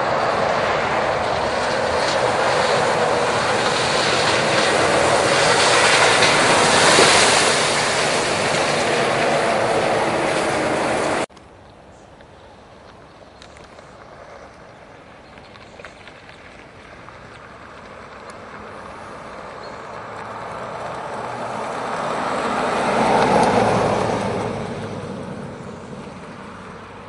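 Subaru Forester e-Boxer SUV driving through a muddy, puddled track: a loud, steady rush of tyres in mud and water that builds for several seconds and then cuts off abruptly. After the cut the car is heard driving past, its tyre and running noise swelling to a peak a few seconds before the end and fading away.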